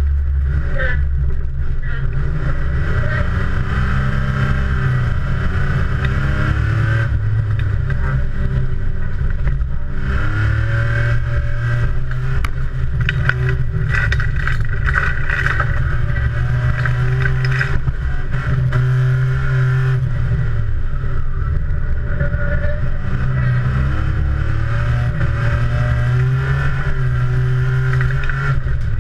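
Racing car's engine heard from inside its stripped, roll-caged cabin, revving up and dropping back over and over as the car accelerates, shifts and slows through the corners. Sharp knocks and rattles come through now and then.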